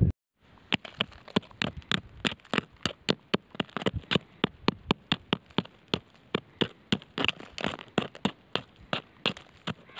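A metal digging tool scraping and striking gravelly soil and pebbles: a quick, uneven run of sharp clicks, about three or four a second.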